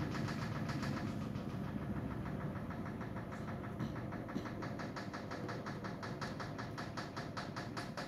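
Miele EDITION 111 W5873 front-loading washing machine in the last seconds of its final spin cycle. It makes a steady running sound with a regular pulse of about six beats a second.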